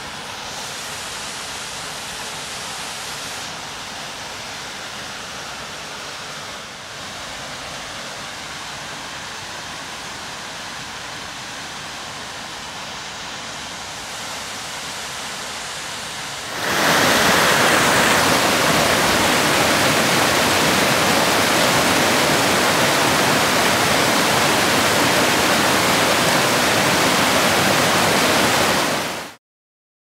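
Tall waterfall plunging down a rock face: a steady rushing noise that becomes much louder a little past halfway and cuts off abruptly near the end.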